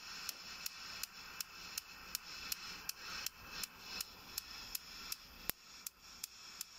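Spark ignition electrode on a Truma 3002 gas heater's burner snapping steadily, about three sparks a second. The owner says the spark jumps to the wrong place, across to the neighbouring burner once things heat up, and suspects a grounding problem.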